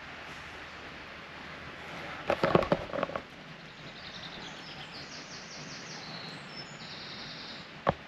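A small songbird singing a quick run of high chirps and trills over a steady hiss of wind and leaves. About two seconds in there is a short burst of loud knocks and rustling, the loudest sound here, and a single sharp click near the end.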